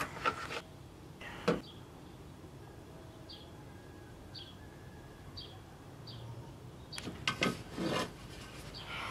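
Food-preparation handling sounds: rubbing and light clatter, one sharp knock about a second and a half in, then a quiet stretch with short, faint high chirps about once a second. Near the end comes more rubbing as hands work flour and water in a plastic basin.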